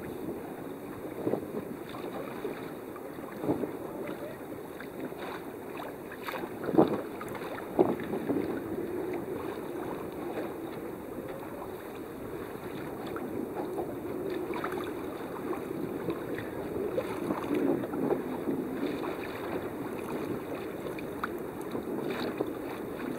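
Water washing along the hull of a Grampian 26 sailboat under sail, with wind on the microphone and a few short sharp splashes against the hull.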